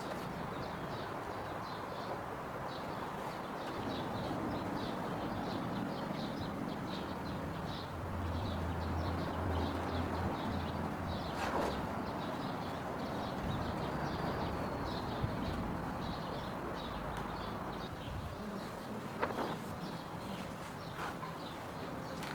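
Small birds chirping over and over, short high chirps over a steady background hiss, with a low hum for a few seconds midway and a few light knocks.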